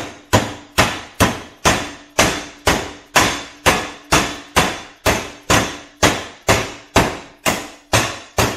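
Snap-on dead-blow mallet tapping a freezer-chilled bearing into a torch-heated aluminium engine case, about two even blows a second, each ringing briefly through the steel plate under the case. The bearing is not dropping in on its own and needs this persuasion.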